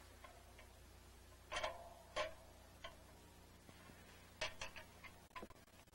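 Several short clicks and knocks, about six spread irregularly over the few seconds, over a steady low hum.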